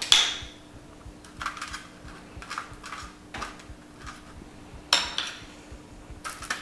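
Metal spoon clinking against a small glass bowl while scooping goat cheese, with soft scraping strokes in between as the cheese is spread on toast. Two sharp ringing clinks, one at the start and one about five seconds in.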